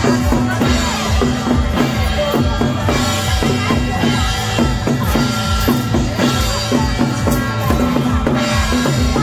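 Loud drum-led percussion music with a fast, steady beat that never lets up.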